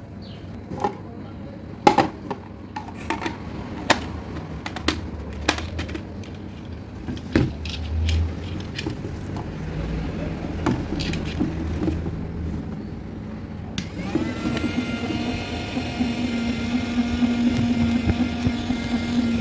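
Plastic clicks and knocks from a toy being handled, then about fourteen seconds in a steady electronic tone with several overtones starts up and keeps going, as the bubble toy's sound effects or motor switch on.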